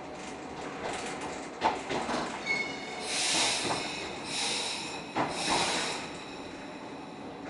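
Electric commuter train running on the rails with a steady rumble and occasional knocks from the wheels. About two and a half seconds in, a high whine sets in, joined by a few seconds of louder hissing squeal before it eases.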